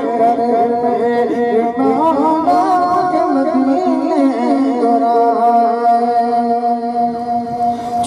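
Devotional song: a voice sings an ornamented melody with accompanying instruments, settling into a long held note in the second half.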